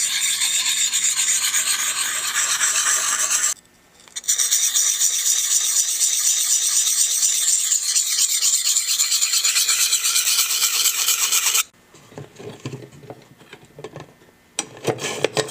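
A 220-grit Edge Pro sharpening stone rasping along a steel knife edge in quick, continuous strokes, in two long runs with a brief pause between them. Near the end the strokes give way to quieter, irregular scrapes and knocks.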